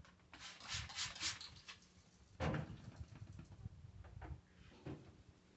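A cloth wiping and rubbing inside a microwave in short, irregular strokes, with a light knock about two and a half seconds in.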